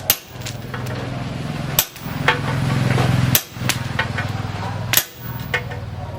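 Hammer blows on disc plough steel at the forge: about seven sharp, irregular strikes, each with a brief metallic ring. A steady low hum runs between the blows.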